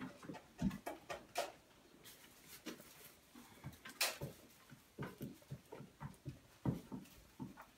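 Chickens pecking feed from a metal trough feeder: irregular sharp taps and clicks of beaks on the trough, with a few duller knocks.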